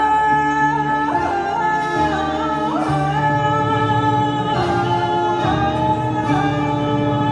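A woman singing live over a pre-recorded backing track, holding long notes that change pitch every second or so.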